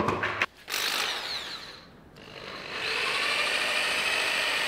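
Corded power drill driving a paddle mixer through two-part epoxy floor coating in a plastic bucket. It spins up about two seconds in and then runs steadily with a high whine, after a knock and some handling noise at the start.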